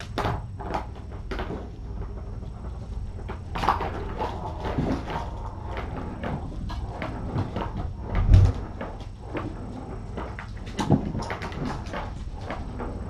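Kittens playing and scampering: scattered light knocks, taps and scuffles of small paws and bodies on the floor and furniture, with one louder thump about eight seconds in.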